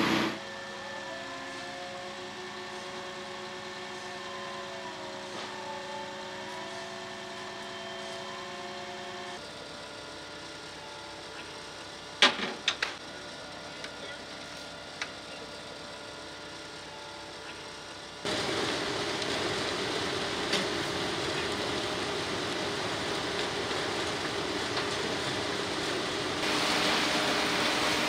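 Engines and machinery of concrete-pouring equipment running steadily, the sound changing abruptly several times as the shots change, with a few sharp knocks near the middle.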